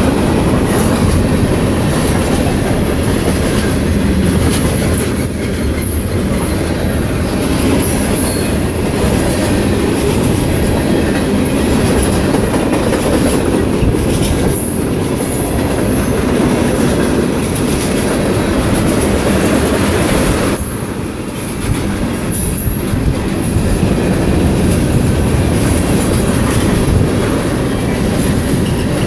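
Freight train cars rolling past on the rails: a steady loud rumble with wheels clicking over rail joints and brief high-pitched wheel squeals, easing off for a moment about two-thirds of the way in.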